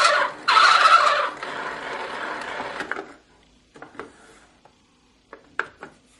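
'The Farmer Says' See 'n Say toy playing its recorded turkey gobble through its small speaker, loud for about the first second and then quieter. After that, a few short clicks as the toy's pointer disc is turned by hand.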